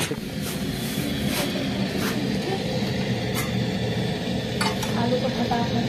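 Scattered light clinks and taps of metal kitchen utensils and pots being handled, over a steady low background rumble.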